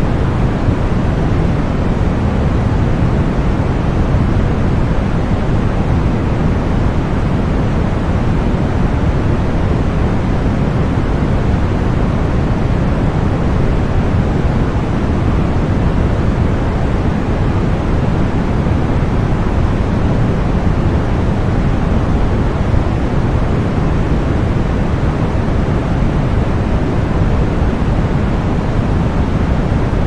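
Steady white noise played as a tinnitus-masking sound: an even, unchanging hiss with its weight in the low end, so it sounds deep rather than sharp.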